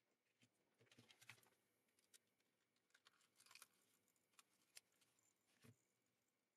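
Faint, irregular plastic clicks and handling noise as the shell of a Corsair gaming mouse is fitted and pressed back onto its base, with a sharp click near 5 seconds and a low knock soon after.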